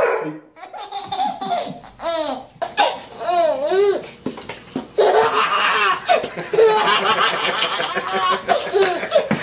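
Baby laughing heartily in strings of laughs, near-continuous over the second half.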